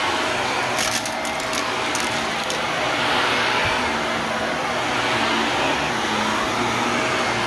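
Shark Navigator Lift-Away Deluxe upright vacuum running steadily over a rug, with a quick burst of sharp rattling clicks about a second in and another brief click near the middle.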